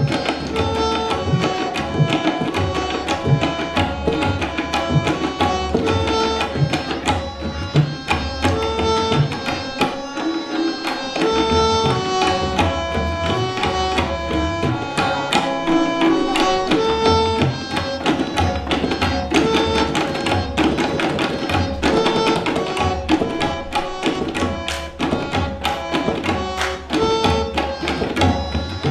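Tabla ensemble of many players striking their tabla pairs together in a dense stream of strokes: ringing, tuned strokes of the treble drums over deep bass-drum strokes. The bass drops out briefly about ten seconds in.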